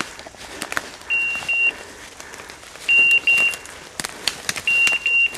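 Electronic beeper collar on a pointing dog giving pairs of short high beeps, three pairs about two seconds apart: the point-mode signal that the dog is standing on a woodcock. Twigs snap and brush crackles between the beeps as the hunters move in.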